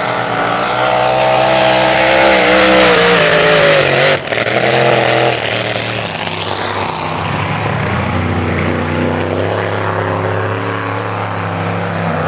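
Supercharged race-boat engines at full throttle: one boat's engine passes close, loud, its pitch falling over the first five seconds with a brief dip about four seconds in, then another boat's engine runs on steadily at a lower pitch.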